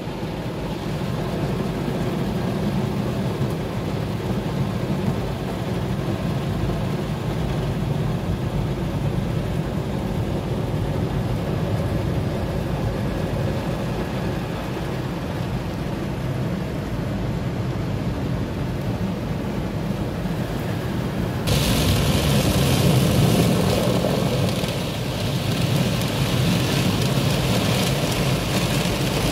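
Automatic car wash heard from inside the car: water and rotating brushes working over the body, with a steady low rumble. About two-thirds of the way through, a much louder hiss of water and brush strips against the glass starts suddenly and holds.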